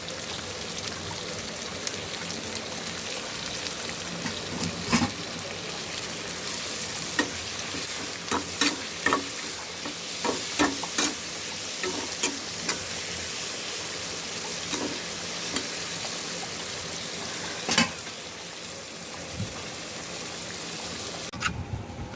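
Onion and garlic frying in hot oil in a pan, sizzling steadily, with a spatula scraping and clicking against the pan as they are stirred. The sizzle falls away suddenly near the end.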